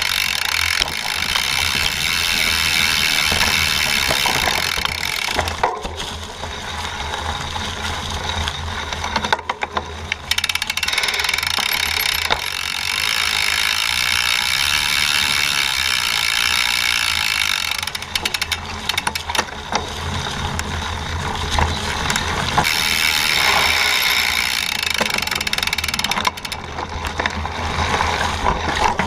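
Mountain bike riding over dry fallen leaves on a dirt trail, picked up by a camera mounted on the frame: steady crunching and rustling of the tyres through the leaves, mixed with chain slap and rattling of the bike over bumps. The noise dips briefly a few times, around six, ten and eighteen seconds in.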